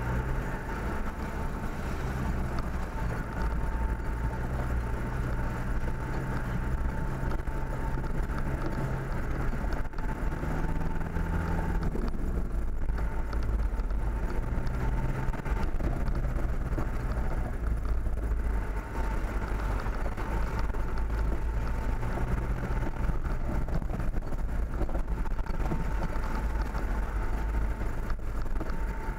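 Motor vehicle driving steadily along a dirt forest track: the engine runs with a low hum whose pitch shifts now and then, most clearly about ten to twelve seconds in, over a steady rumble of tyre and road noise.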